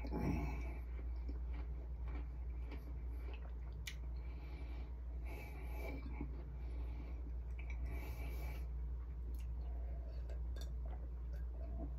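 A person chewing a fresh-baked chocolate chip cookie: quiet mouth sounds with small clicks, over a steady low hum.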